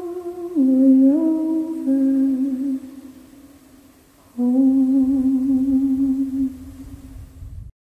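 Soundtrack music: a woman's voice humming a slow traditional folk melody in long held notes, with a short break about three seconds in, then one final long note that fades out just before the end.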